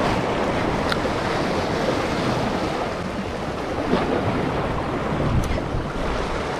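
Surf washing and breaking against the rocks of a jetty, a steady rushing wash with wind on the microphone, and a few faint clicks.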